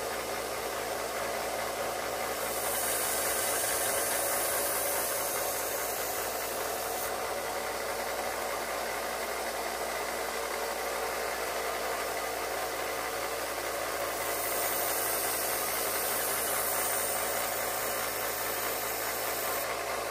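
Electric shop power tool running steadily with a motor hum, with two stretches of a few seconds each where a higher hiss joins in.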